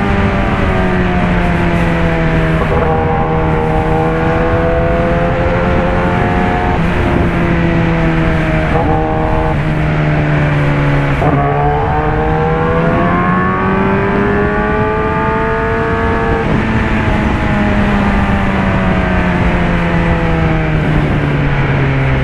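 Kawasaki Ninja ZX-10R's inline-four engine through an SC Project CRT exhaust, riding under load. The revs rise and fall, with several abrupt breaks in pitch as the quickshifter changes gear.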